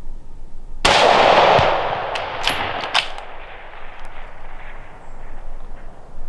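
A single rifle shot about a second in, its report rolling away as a long echo that fades over several seconds, with a few sharp clicks two to three seconds in.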